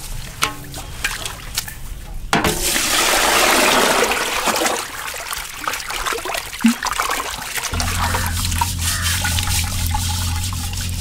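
Water splashing and sloshing in a large aluminium pot as minced mutton is washed by hand, with dripping and trickling as the meat is lifted out. It starts with a few knocks of a metal plate against the pot, and the splashing gets louder about two seconds in. A steady low hum joins near the end.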